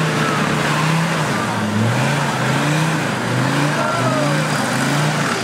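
Land Rover Defender's engine revving up and down as the 4x4 claws its way up a steep, muddy slope, the pitch rising and falling again and again under heavy load.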